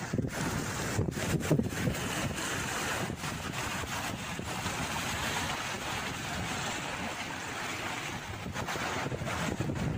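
Sea waves washing and splashing against rocks, with wind buffeting the microphone.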